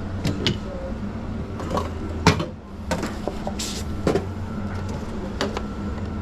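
Drink-making at a coffee counter: scattered sharp knocks and clicks of cups and equipment over a steady low machine hum, with a short hiss about three and a half seconds in.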